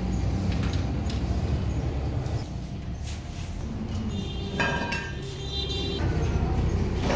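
Light metal clinks from a T-handle wrench being turned on a brake hydraulic cylinder held in a steel vise, with a brief high ringing squeak of several tones a little past four seconds in, over a steady low background rumble.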